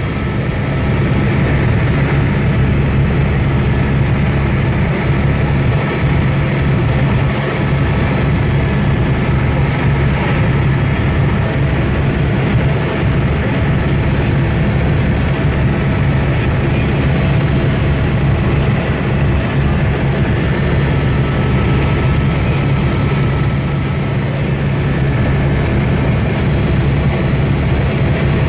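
Helicopter running steadily: a constant loud drone with a low steady hum that does not change.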